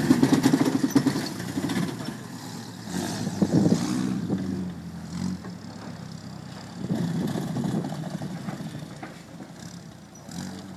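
Engine of a reproduction Krupp L2H143 truck pulling away, rising in surges at the start, about three and a half seconds in and about seven seconds in, then fading as the truck drives off.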